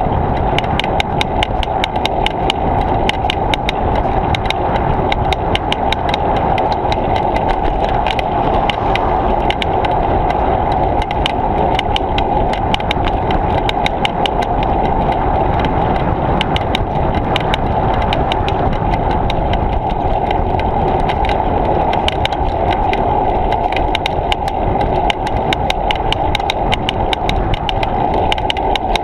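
Steady wind and rolling noise of a bicycle ride on a camera mounted to the bike or rider, with a rapid, regular ticking over it.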